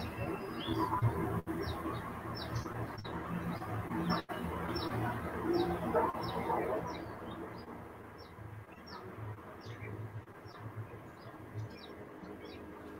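A small bird chirping over and over, short high chirps that drop in pitch, about two a second, over low background noise and hum.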